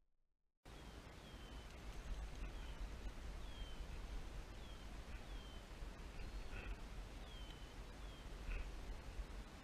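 A bird repeating a short, falling whistled note about once a second, over a steady low rumble of wind on the microphone; the sound starts abruptly about half a second in.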